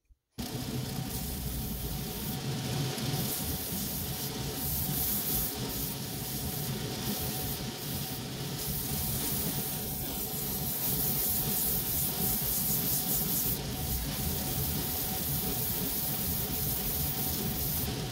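Bench grinder fitted with 200-grit sandpaper, running steadily while the edge of a new clog sole is pressed against it to trim it to the line: a motor hum under the hiss of abrasive grinding the sole. It starts abruptly about half a second in.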